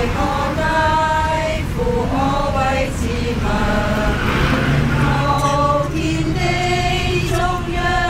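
A group of voices, mostly women's, singing together in long held notes, over the steady low rumble of the bus.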